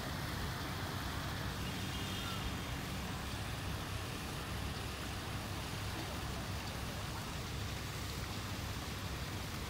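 Steady outdoor background noise: an even low rumble with a hiss over it.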